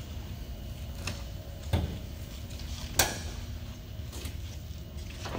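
Two sharp clicks, about a second apart and the second louder, over a low steady rumble.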